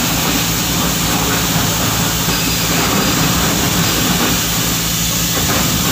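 An engine idling steadily, with an even low throb.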